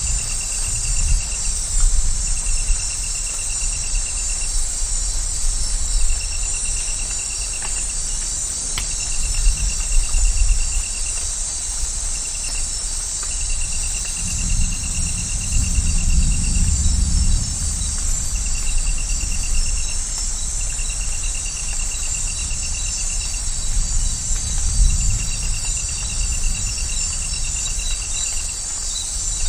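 Rainforest insect chorus: a dense, steady high buzz with one insect trilling in repeated bouts of a second or three. Low rumbles of distant thunder swell about halfway through and again a few seconds before the end.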